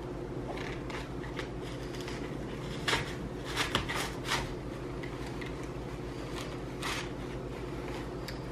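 Faint rustling and crinkling of artificial flower stems and leaves being handled and pushed into an arrangement, over a steady low hum. Short scrapes come about three to four and a half seconds in and again near seven seconds.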